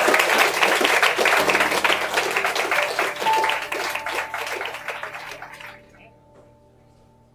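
Audience applauding, fading out about six seconds in, over a quiet sustained chord of music.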